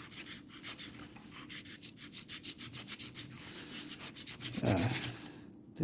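Utility knife blade sawing through pink foam board in rapid scratchy strokes, about eight a second, stopping near the end. The blade is dragging rather than slicing cleanly.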